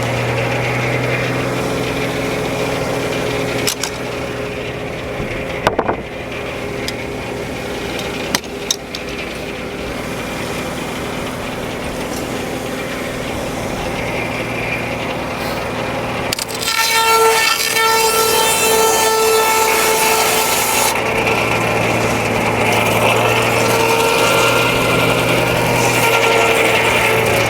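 Frick No. 1 circular sawmill running and sawing a log, a steady hum under a rasping cut, with a few sharp knocks in the first nine seconds. From about sixteen to twenty-one seconds in, a ringing whine rises over the sawing.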